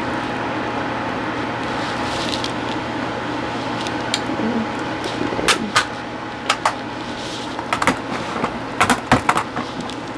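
Steady hum and hiss of background noise, broken from about four seconds in by scattered short, sharp clicks and taps, some in quick pairs and clusters, like small objects or the microphone being handled.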